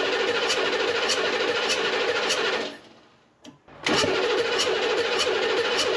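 HMMWV 6.5-litre V8 diesel running steadily on its freshly reinstalled, rebuilt injection pump, with a light high tick repeating a little under twice a second. The sound drops away for about a second around the middle, then the engine is heard running again at the same level.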